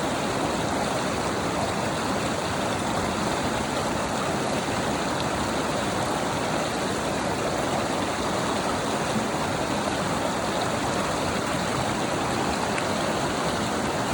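A stream running steadily, a constant rush of water with no change in level.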